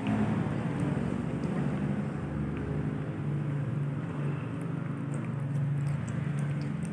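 A steady low rumbling drone, engine-like, with faint scattered crisp clicks over it.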